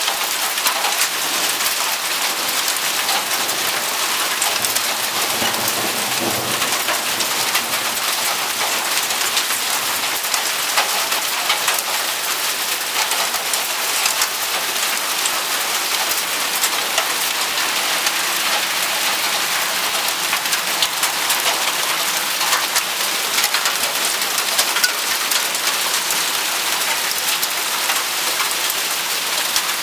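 Heavy downpour falling hard on pavement and a parked car: a steady, dense hiss of countless small impacts.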